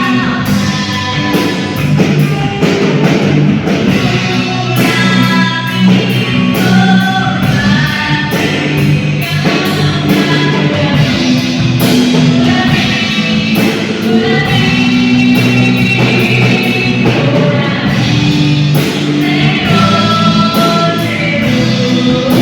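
Band rehearsing a worship song live: a voice singing over drum kit and guitar.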